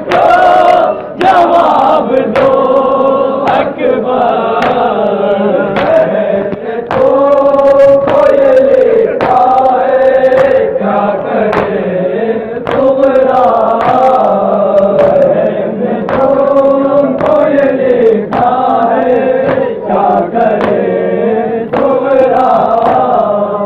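A group of men reciting a nauha, an Urdu mourning lament, in chorus, with sharp chest-beating (matam) strikes about once a second.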